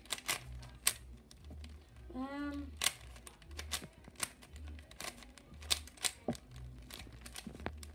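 Rubik's Cube being turned quickly in a speed solve: a string of sharp plastic clicks and clacks as the layers snap round. A short hummed voice sound, rising then falling, comes about two seconds in.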